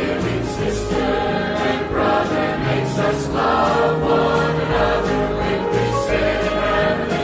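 Mixed church choir of men and women singing a gospel hymn in sustained chords, with instrumental accompaniment underneath.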